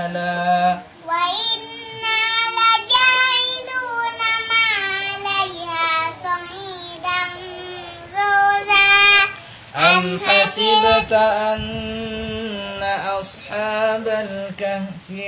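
A small boy's high voice chanting Quran recitation in a melodic tilawat style, held on long notes. A man's much lower chanting voice comes in around ten seconds in.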